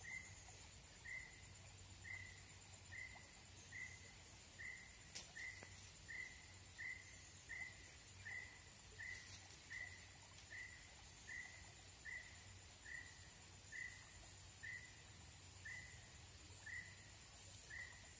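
Faint nature ambience: a short high chirp repeats evenly, a little more than once a second, over a steady high-pitched insect drone. A single click comes about five seconds in.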